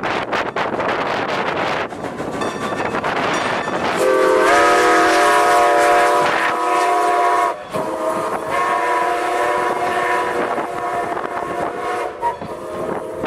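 Ex-Great Western #90, a 2-10-0 Decapod steam locomotive, rushes past in a rough noise of wind on the microphone and the moving train. About four seconds in, its steam whistle sounds a chord of several notes in two long blasts, with a short break between them.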